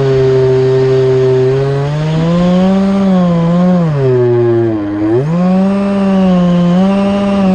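Electric motor and propeller of an FPV flying wing buzzing in flight, heard on the onboard camera. The pitch rises about two seconds in, drops sharply just before halfway as the throttle is eased, then climbs back up.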